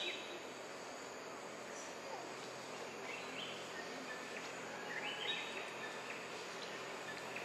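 Outdoor woodland ambience: a steady hiss with short rising high-pitched calls about three seconds and five seconds in.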